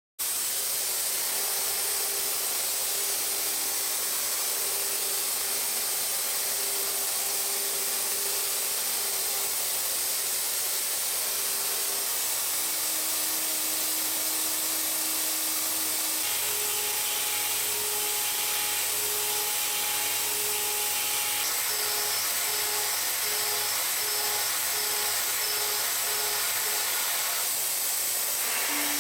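Tongtai VP-8 vertical machining center cutting: a high-speed spindle whine over a steady high hiss. The whine changes pitch several times, around halfway through and again at the very end.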